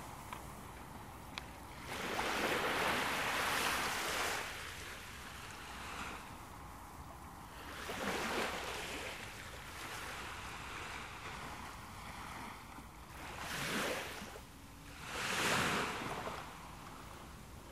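Sea waves washing in on a shore: four swells of rushing surf that rise and fall over a low background hiss. The first swell, about two seconds in, is the longest, and the last two come close together near the end.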